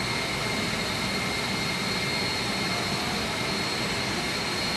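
Steady drone of running machinery in a chiller plant room, with a constant high whine over it.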